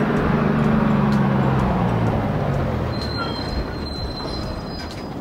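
Bus engine sound effect as the bus drives in. Its low hum fades out about halfway through, leaving a steady noise.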